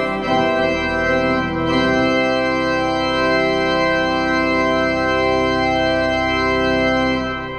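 Organ music: sustained chords that change about two seconds in, then one long held chord that begins to fade near the end.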